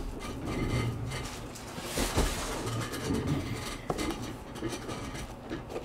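Soft irregular rustling and a few light knocks from sealed trading card boxes and their plastic wrap being handled.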